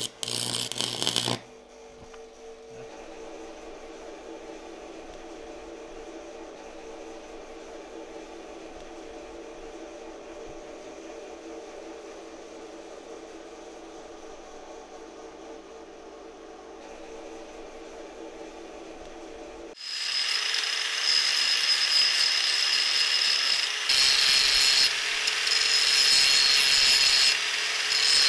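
Stick welding on cast iron: the arc crackles for about the first second and a half, then stops. A quieter steady hum follows. About 20 seconds in, a grinding wheel starts grinding down the weld on the cast iron part, loud and high-pitched, easing off briefly twice.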